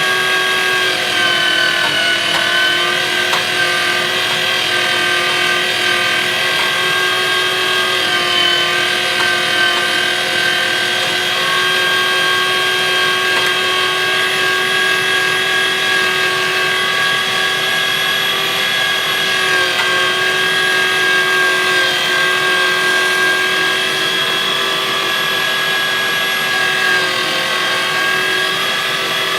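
Weston #12 electric meat grinder's 1 horsepower, 750 watt motor running steadily as it grinds chilled venison, with a pitch that dips briefly a couple of times as it takes load.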